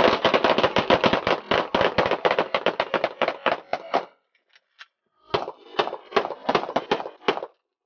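Rapid pistol fire from several shooters at once, sharp shots coming several a second for about four seconds, then after a brief pause a second burst of shots.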